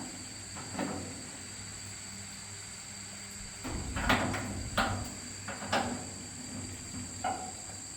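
Insects singing in a steady high-pitched drone, with a few sharp knocks scattered through it, most of them in the second half.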